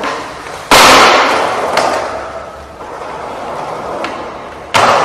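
Skateboard hitting concrete twice, about four seconds apart: each time a loud, sharp clack followed by a fading rolling noise from the wheels, with a smaller click between them.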